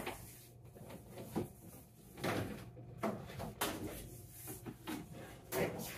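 Scattered knocks, rustles and scrapes of heavy electrical cable being handled and pulled through the joists by hand.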